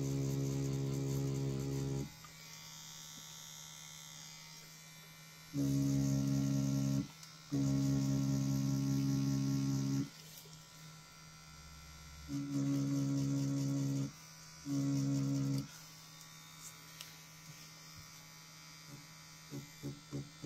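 Rotary pen tattoo machine buzzing at a steady pitch in runs of one to four seconds, stopping and restarting as the needle works practice skin. Near the end it buzzes in quick short pulses.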